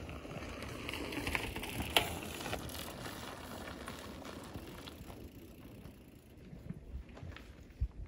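A mountain bike passing close by on a dirt trail, its tyres crunching and ticking over gravel and small rocks. The sound is loudest about two seconds in, with one sharp click, then fades as the bike rides away.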